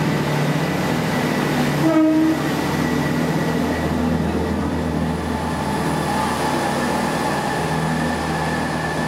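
First Great Western Class 165 Turbo diesel multiple unit pulling out close by, its underfloor diesel engines running with a steady hum. About two seconds in, a short horn toot sounds.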